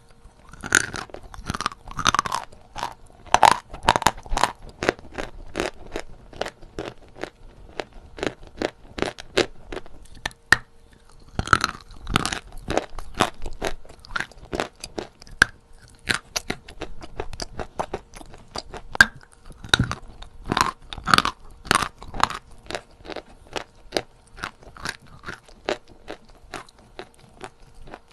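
Close-up crunching of natural Novy Oskol chalk being bitten and chewed: sharp, brittle crunches, several a second, in runs with short pauses between.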